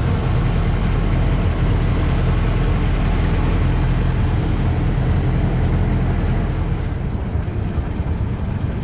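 Boat engine running steadily under a rush of wind and water, easing off about seven seconds in.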